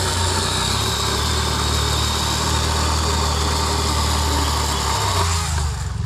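An engine running steadily, with a loud hissing rush over it that starts suddenly and dies away after about five seconds.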